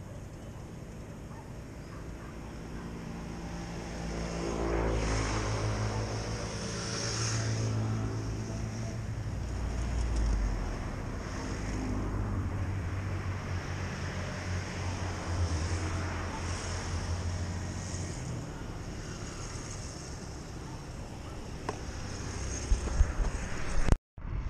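Motor traffic passing on a road bridge: engine rumble that swells about four seconds in and rises and falls as vehicles go by. A few knocks near the end.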